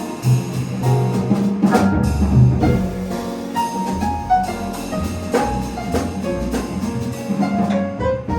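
Jazz piano trio playing: piano lines over bass and a drum kit, with cymbal strokes cutting through now and then.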